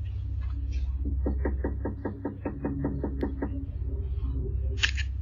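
A quick run of about fifteen knocks on a front door, about six a second, picked up by a doorbell camera's microphone over a steady low rumble. A short hissy burst near the end.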